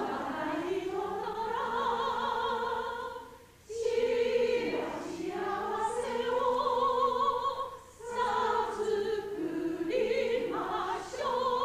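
A group of women singing together, led by a trained soprano voice with clear vibrato. The singing comes in long held phrases with short breaths about every four seconds.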